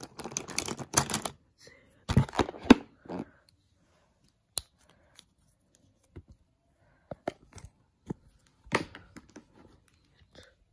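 Plastic highlighters and pens clattering and clicking in a plastic pencil box as a hand rummages through them, in two dense bursts over the first three seconds. After that come scattered light clicks and taps, with another short burst of rustling and clicking about nine seconds in.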